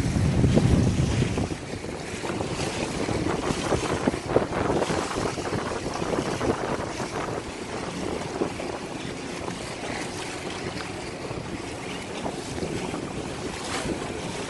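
Wind buffeting the microphone over splashing sea water, with a heavy gust in the first second and a half, then a steadier rush of wind and water.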